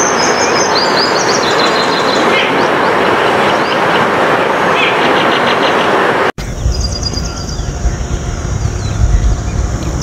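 Small birds chirping in quick high notes over a loud, steady rushing noise. About six seconds in, the sound cuts abruptly and a low rumble replaces the rushing, with the chirping going on above it.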